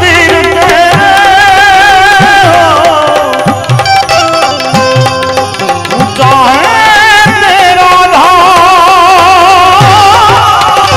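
Instrumental passage of a Gujarati devotional bhajan: tabla, its deep bass strokes sliding down in pitch, under a melodic lead line with a wavering pitch.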